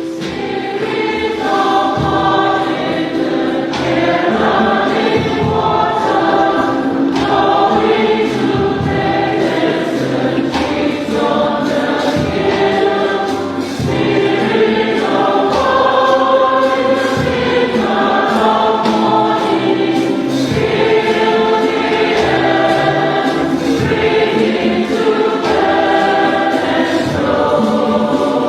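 Choir singing a sacred piece: sustained, overlapping voices moving slowly from chord to chord.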